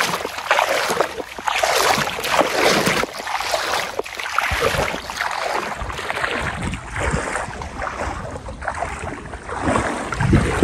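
Water splashing and sloshing in repeated surges, with wind buffeting the microphone.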